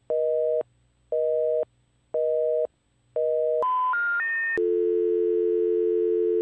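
Telephone line tones heard through the handset after the call is cut off: four short, low busy-tone beeps about a second apart, then three quick rising tones and a steady continuous tone.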